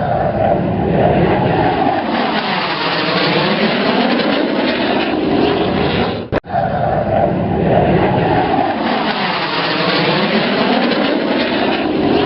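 A vehicle engine running hard, its pitch sinking and then climbing again, heard twice with a sudden brief break about six seconds in.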